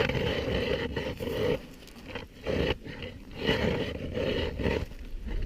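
Ice auger boring through thick lake ice, grinding in uneven bursts about a second long, just before its cutter breaks through the bottom of the ice.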